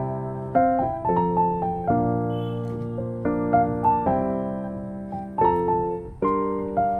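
Background music: a slow, gentle piano melody with chords, each note struck and left to fade.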